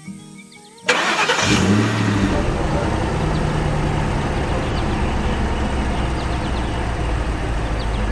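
Soft music, then about a second in a sudden loud burst as a motor vehicle engine starts up and runs steadily at a low, rumbling pitch.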